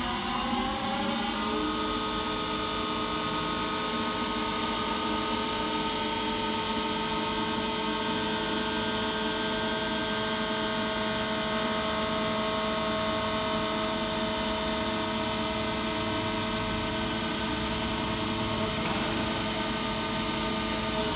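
CNC wood lathe running a cut on a wooden workpiece: a steady, many-toned motor whine that rises in pitch over the first second or so, holds level, and falls again near the end.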